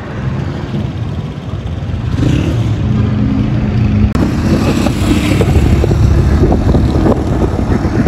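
Loader rickshaw's small engine running as it pulls away and drives down the road, heard from its open cargo bed, with road noise.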